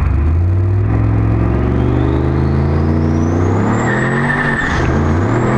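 Turbocharged Ford SVT Lightning pickup's V8 accelerating hard, heard from inside the cab: the engine note climbs with a thin rising turbo whistle. About four and a half seconds in, both drop briefly at a gear shift, then climb again.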